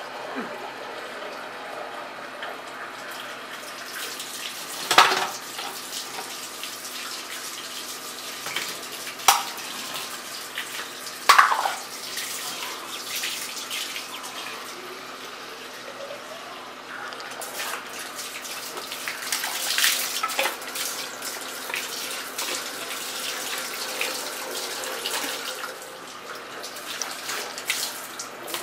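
Water from a hose pouring steadily into a plastic bucket, filling it, with three sharp knocks about a third of the way through.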